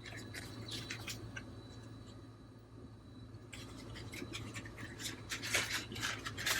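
Light scratching, rustling and small clicks of butter being unwrapped and handled for the pan. The sounds grow denser over the last few seconds.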